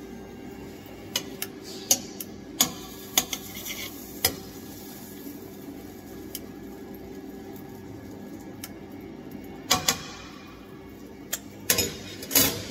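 Scattered clinks and knocks of cutlery against a plate and pan, with a louder clatter near the end, over a steady low hum.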